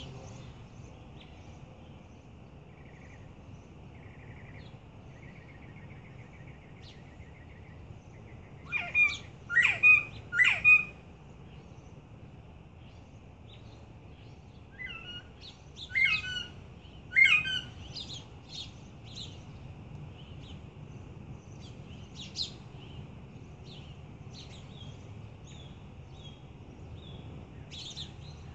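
Young northern bobwhite quail, about eight weeks old, making their first calls: short sharp chirping calls rather than the full adult bob-white whistle. Two bursts of louder calls, three in a row about nine seconds in and another group around sixteen seconds, with faint chirps scattered between.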